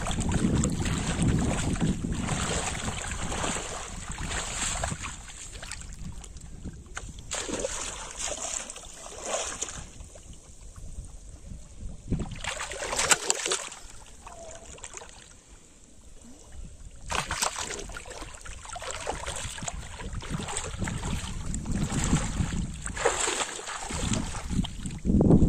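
Water splashing in a shallow pond as a hooked fish thrashes at the surface and a person wades through the water, with a few sharp splashes partway through. Wind buffets the microphone, strongest at the start and near the end.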